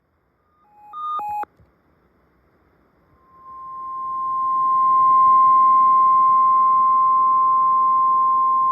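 A few short electronic beeps at different pitches about a second in, then the NOAA Weather Radio 1050 Hz warning alarm tone: one steady pure tone that swells in over about two seconds and holds. It signals that an emergency alert, here a tornado watch, is about to be read.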